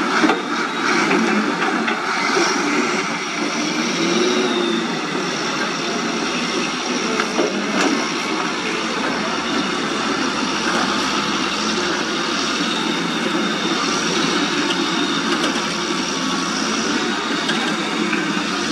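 Shacman dump truck's diesel engine running steadily as the truck pulls away loaded with soil, with one brief rise and fall in engine pitch about four seconds in.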